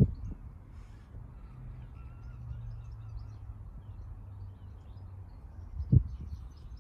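Low, steady drone of a Class 166 diesel multiple unit approaching from a distance, with two sharp knocks, one at the start and one about six seconds in.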